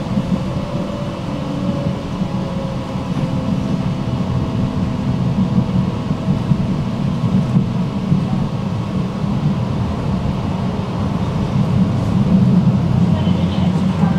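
Electric tram running along the track: a steady low rumble of wheels on rails.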